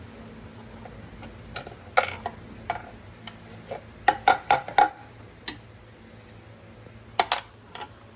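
Irregular sharp clicks and light metallic knocks of hand tools and scooter parts being handled, with a quick run of four knocks about four seconds in and two more near the end.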